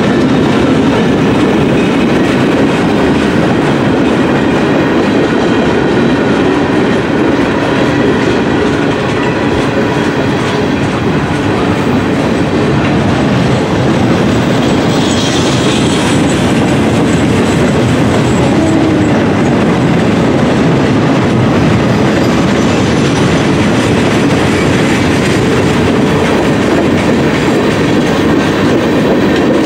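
Freight cars of a mixed freight train rolling past close by: a steady rumble and clatter of wheels on the rails, with a brief high squeal about fifteen seconds in.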